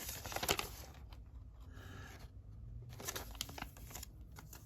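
Paper and box packaging rustling as it is handled, with several light clicks and taps, most in the first second and again about three seconds in.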